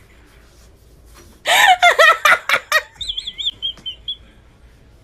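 A bird calling: a burst of loud, harsh squawks about a second and a half in, followed by a few wavering high whistles.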